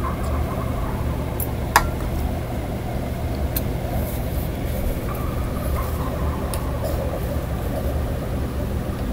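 A steady low rumble, with one sharp click a little under two seconds in.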